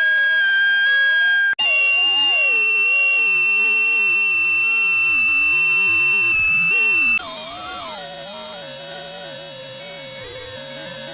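Loud, layered electronic tones: several steady high beeps held at fixed pitches over wavering, gliding lower tones, like stacked synthesized sound effects. The mix cuts out for an instant about a second and a half in, and the set of tones switches abruptly about seven seconds in.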